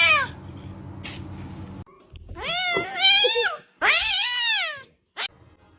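Domestic cat meowing: a short meow at the start, then two long, drawn-out meows one after the other.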